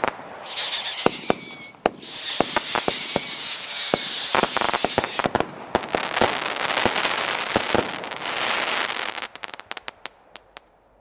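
Saturday Night Special 36-shot fireworks cake firing whistling tails, each a slightly falling whistle, among sharp reports. Then a dense wash of crackling from the crackling-flower bursts thins into scattered pops and dies out near the end.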